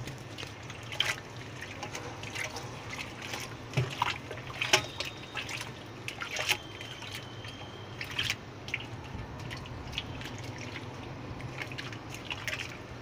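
Liquid leaf compost being stirred with a stick in a bucket: irregular sloshing, splashing and dripping.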